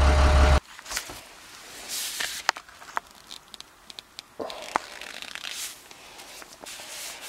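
A low idling engine hum cuts off about half a second in. Rustling, rubbing and scattered light clicks follow, from gloved hands handling foam-insulated copper refrigerant lines at an air handler.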